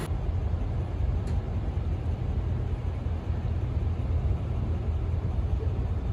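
Steady low rumble of an idling vehicle engine, with one faint click about a second in.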